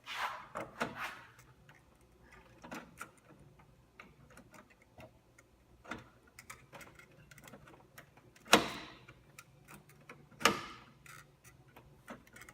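Scattered clicks and knocks of a 550 MHz processor being worked into its mount on a computer motherboard, a fiddly fit, with two sharp, louder clicks about eight and a half and ten and a half seconds in.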